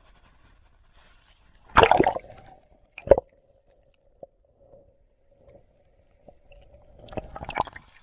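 A few separate wet splashes and squishes of water, with a faint steady hum behind them.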